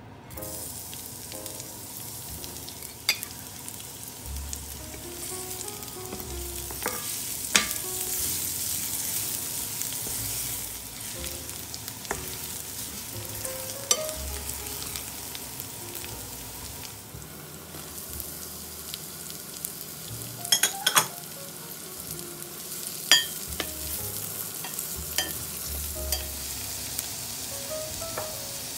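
Chopped garlic and onion sizzling in a hot stainless steel frying pan, the hiss starting as the garlic drops in. A metal spoon stirring them clinks sharply against the pan now and then, with a quick run of clinks about two-thirds of the way through.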